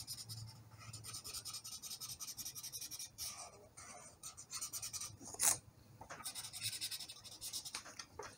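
Marker tip rubbing back and forth on paper, colouring in an area with quick, scratchy strokes. The strokes grow sparser after about three seconds, with one louder stroke about five and a half seconds in.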